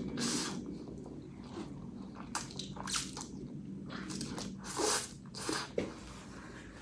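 A person eating spicy instant noodles close to the microphone: a string of short slurps of noodles and wet chewing sounds.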